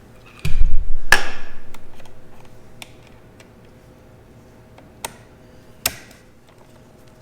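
Hand-tool work on a screw terminal: a loud knock about half a second in, then a quick run of small clicks fading out over about two seconds, and two sharp clicks later on.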